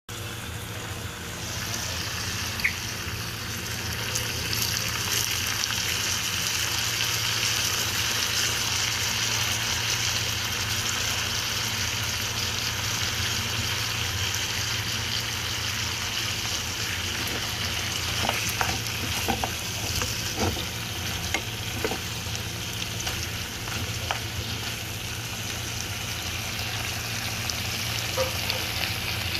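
Pork ribs sizzling steadily as they fry in oil in a pan, with a run of short clicks and knocks about two-thirds of the way through as a wooden spatula turns them.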